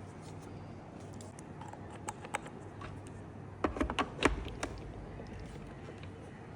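Several light clicks and knocks, like small hard objects being handled, with two single clicks and then a quick cluster about halfway through, over a steady faint background hum.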